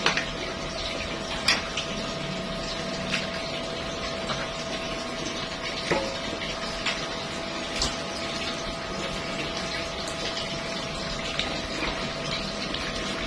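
Chicken pieces being stirred into boiling coconut-milk curry broth in a large metal wok: a steady bubbling and hissing, with a few sharp clinks of the metal spatula against the wok.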